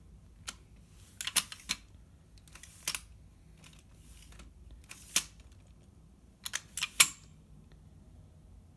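Telescoping trolley handle of a rolling tote bag being pushed down and pulled back up, clicking and clacking as it slides and latches at its height stops. The clicks come in scattered groups, with a quick run of them near the end, the loudest about seven seconds in.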